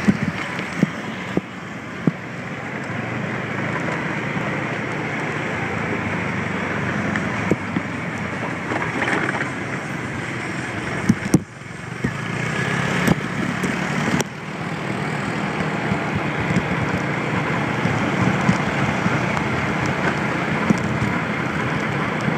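Steady running noise of a moped being ridden: the small engine and wind rushing over the microphone. The noise dips briefly about halfway through.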